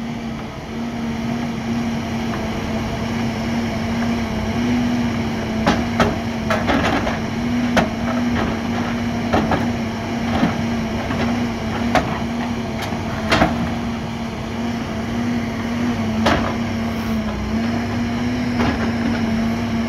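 Heavy tracked machine's diesel engine running at a steady speed with an even hum, and scattered sharp metal clanks and bangs as its grapple works at the cab and boom of a scrapped forestry machine.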